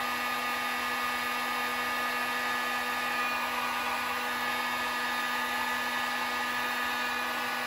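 Electric heat gun running steadily, a constant blowing rush with a steady motor hum, its nozzle held on a crimped wire connector to shrink it.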